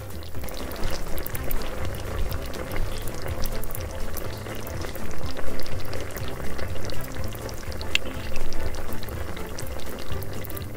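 A small pan of creamy sauce bubbling on the heat, a dense crackle of small pops and ticks, with background music underneath.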